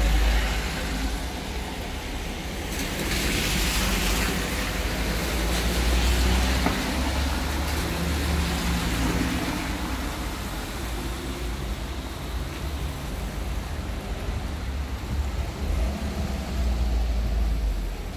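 Cars passing slowly on a rain-soaked road, their tyres hissing on the wet tarmac over a low engine rumble; the hiss is loudest a few seconds in as one car goes by close.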